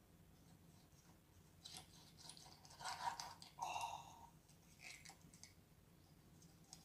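Quiet, scattered sounds of a knife cutting raw octopus on a wooden cutting board, with wet, sticky clicks as tentacles are pulled apart and lifted. The loudest come about three and four seconds in.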